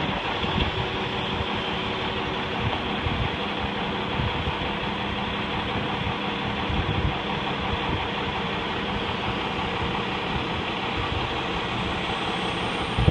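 An engine running at a steady speed: a constant drone with a low, even hum that never rises or falls. This is most likely the crane's engine as it hoists the schooner's wooden mast.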